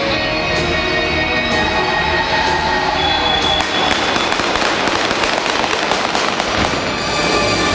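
Rock guitar music over loudspeakers, then about halfway through a stunt car spinning donuts takes over: engine revving under a dense, crackling rush of tyre noise.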